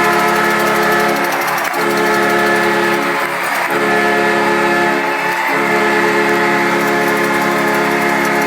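Hockey arena goal horn sounding in long, loud blasts of one steady chord, breaking off briefly three times about every two seconds.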